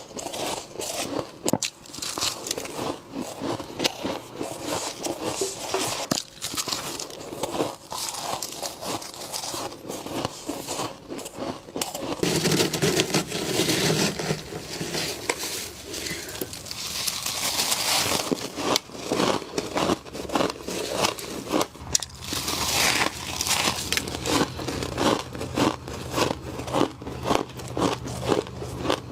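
Frost from a humidifier being bitten and crunched close to the microphone: a dense run of crisp crackling clicks, with a noisier, scraping stretch partway through.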